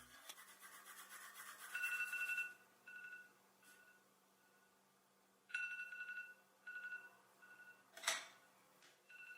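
Phone alarm beeping faintly: a high electronic tone in groups of three beeps, the first longest and the next two weaker, repeating about every four seconds. One sharp click comes shortly before the last group.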